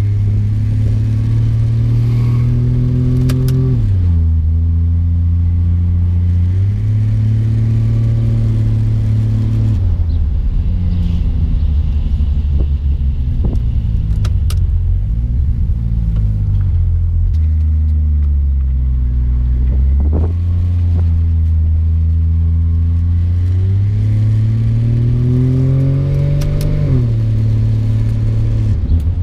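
Toyota 1JZ-GTE turbocharged inline-six in a Holden VB Commodore, heard from inside the cabin while driving. The engine note climbs steadily and then drops back sharply at each gear change, about three times.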